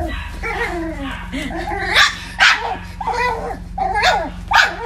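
Cavalier King Charles Spaniel yipping and barking in a string of short, high calls, with sharper barks about two, two and a half, three and four seconds in and again near the end.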